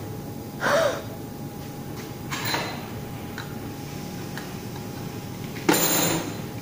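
Steady workshop hum broken by three short, noisy bursts of handling noise, the last one near the end the loudest.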